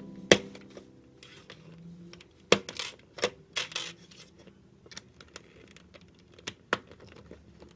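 Lego plastic pieces being pressed and snapped onto a Lego plate, giving sharp plastic clicks and taps: one early, a quick cluster through the middle, and two more near the end.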